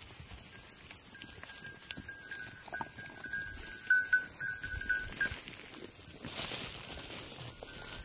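Steady high-pitched drone of an insect chorus in the grass and trees, with a faint thin whistle held over the first few seconds. A few short knocks stand out about four to five seconds in.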